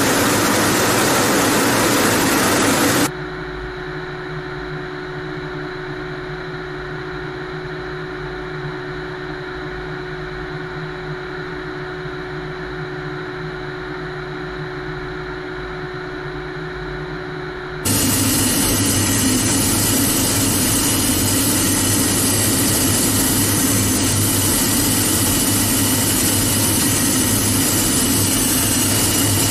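Steady jet engine and airflow noise heard inside a MiG-31BM's cockpit. About three seconds in it cuts abruptly to a quieter hum with a steady tone, and about eighteen seconds in it cuts back to the louder rushing noise.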